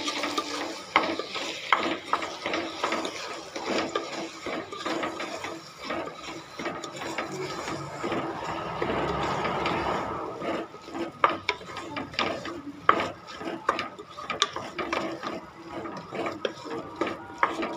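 Wooden spatula stirring washed foxtail millet through tomato masala in a metal pressure cooker: a continuous rasping scrape of grains against the pot, with scattered sharp knocks of the spatula on its sides.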